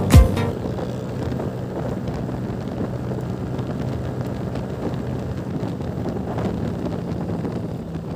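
Motorcycle engine running steadily at road speed, with wind rushing over the microphone. A last beat of music is heard at the very start.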